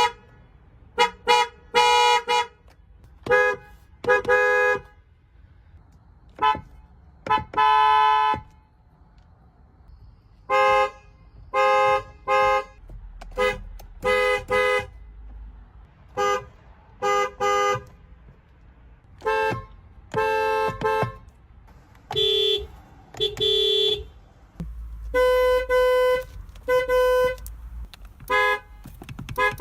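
Vehicle horns honking in a long series: short toots, some single and some in quick pairs, with a few longer blasts of about a second, from several horns of slightly different pitch.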